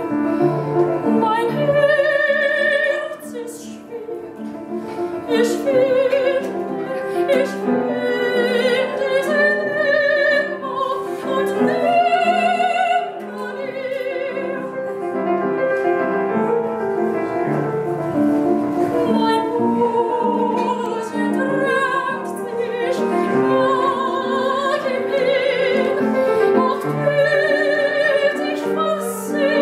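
Live classical performance: an operatic voice singing long held notes with wide vibrato, accompanied by piano.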